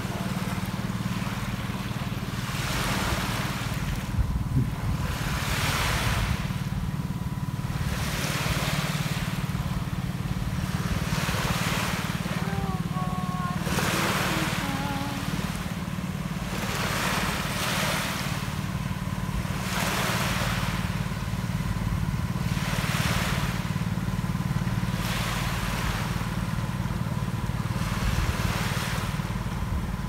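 Sea waves washing onto a sandy beach, a hiss that swells and fades every couple of seconds, over a steady low rumble.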